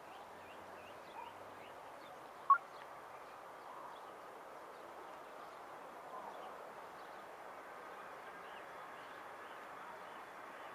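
Distant Boeing 737 jet engines at take-off thrust as the airliner accelerates down the runway: a steady rushing noise that slowly builds, joined by a thin steady whine about three-quarters of the way in. Small birds chirp throughout, and one short sharp sound about a quarter of the way in is the loudest thing heard.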